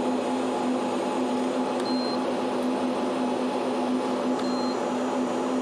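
Two short high beeps, about two and a half seconds apart, from a handheld thermometer taking temperature readings on an overheated amplifier power cable. Under them runs a steady electrical hum with a low held tone.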